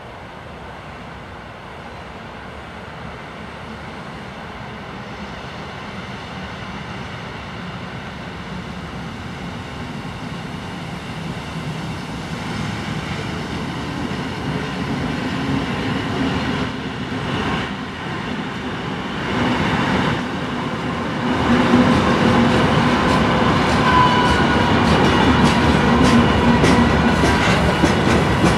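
2TE116 twin-section diesel freight locomotive, with a 16-cylinder 5D49 diesel engine in each section, running toward and past the listener. Its engine grows steadily louder, jumping up about three quarters of the way through as the locomotive goes by. Near the end the freight wagons' wheels click over the rail joints.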